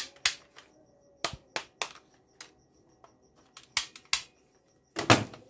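Sharp plastic clicks and knocks from a black plastic toy AK-style rifle being handled, about eight separate clicks spaced irregularly, with a louder cluster of knocks near the end.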